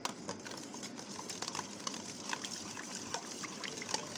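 Metal spoon beating egg into milk in a steel bowl: many quick, irregular clicks of the spoon against the bowl over a light sloshing of liquid.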